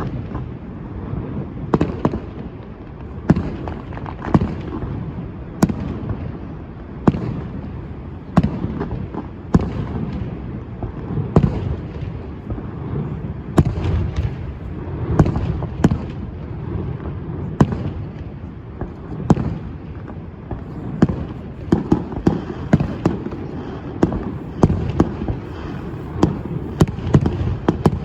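Fireworks going off in a display: sharp bangs about once a second, coming closer together near the end, with a low rumble between them.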